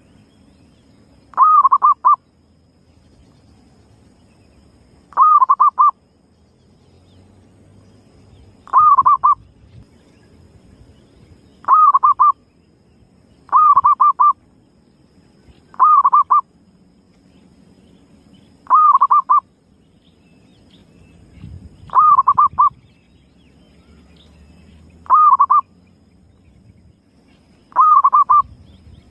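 Zebra dove (perkutut) calling, used as a lure call: ten short cooing phrases, each a quick run of three or four notes, repeated every two to four seconds.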